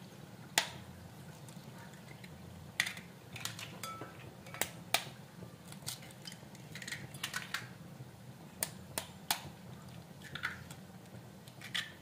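Eggs being cracked open one after another into a ceramic bowl: scattered sharp taps and clicks of eggshell struck against a metal fork and breaking, with the fork clinking on the bowl.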